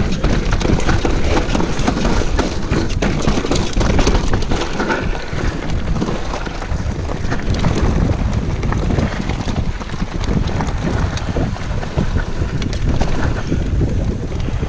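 Wind buffeting the microphone of a chest-mounted action camera on an electric mountain bike descending a loose gravel and dirt trail at speed, with the steady noise of tyres on the ground and constant small knocks and rattles from the bike.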